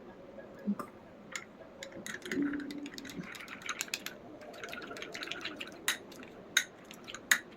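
Slime being squished and worked by hand: scattered sticky clicks and pops with soft crackling in between.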